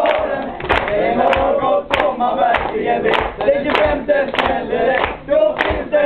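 Group of young male voices singing a Swedish pop song together, with hand claps keeping a steady beat, a little under two a second.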